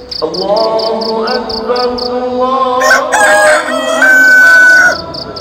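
Rooster crowing: a drawn-out crow that builds in pitch and ends on a long, loud held note about four seconds in, then stops. Insects chirp in a steady high pulse, about three times a second, behind it.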